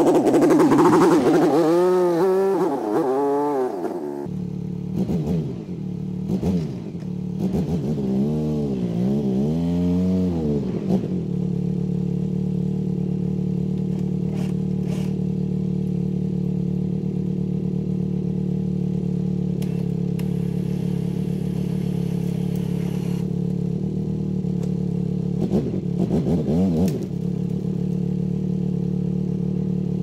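Polaris Sportsman ATV engine revving up and down several times as it drives off, then idling steadily, with one more short rev near the end.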